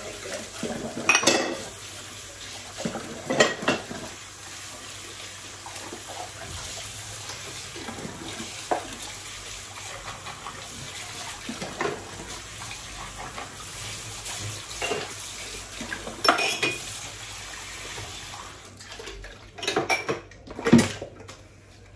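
Washing up at a kitchen sink: dishes and cutlery clinking and clattering under a running tap. The water stops near the end, followed by a few louder clatters of dishes.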